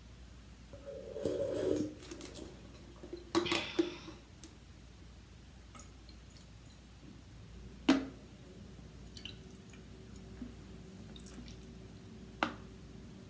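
Water poured from a plastic bottle into an aluminium beer can, dripping and trickling, with clinks and knocks as the bottle and can are handled. A sharp knock about eight seconds in is the loudest sound.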